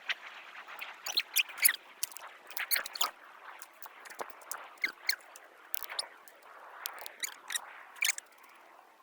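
Small campfire of damp twigs and grass crackling and popping irregularly, with a few short squeaky whistles from the wet wood.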